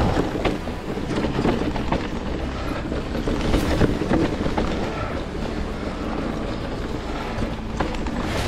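Giant Reign E+ electric mountain bike riding down a rough trail: the knobby Maxxis Assegai tyres rumble steadily over dirt and rocks, with frequent knocks and rattles from the bike over the bumps.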